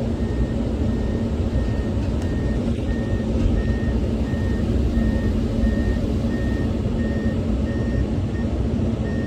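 Komatsu 210 excavator's diesel engine running under load as it tracks up onto a trailer, with its travel alarm beeping steadily about twice a second.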